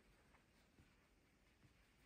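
Near silence: room tone, with a few faint soft taps.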